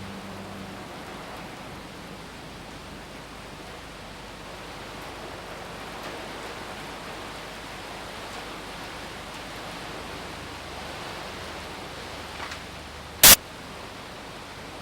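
A steady, even hiss. A low hum fades out in the first second, and one sharp, loud click comes near the end.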